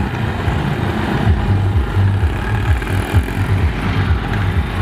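Engines of several auto-rickshaws running as they drive past one after another, a steady engine noise with an uneven low pulsing.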